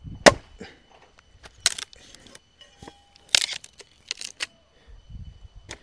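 Axe blows splitting a wooden log: about five sharp strikes, roughly a second apart, the first the loudest.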